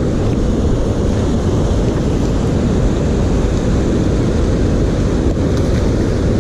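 Steady low rushing of creek water pouring over a low concrete weir.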